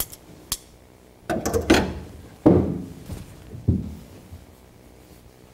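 Jute carpet padding being lifted and folded back across a car's floor pan: rustling and dragging with soft thuds, in three bursts about a second and a half, two and a half and nearly four seconds in, after two light clicks at the start.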